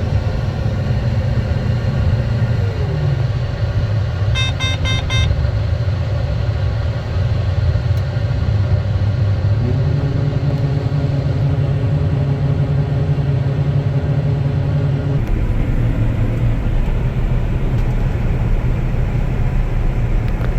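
Combine harvester running steadily while unloading its grain tank. A quick run of electronic beeps comes about four seconds in. About ten seconds in a second, higher hum starts up, and it cuts off suddenly about five seconds later.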